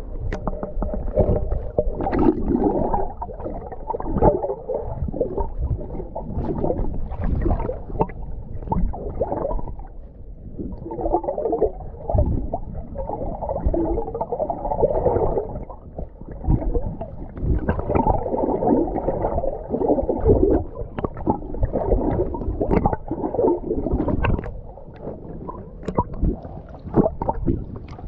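Muffled sloshing and gurgling of seawater around a submerged phone microphone, swelling and easing every few seconds.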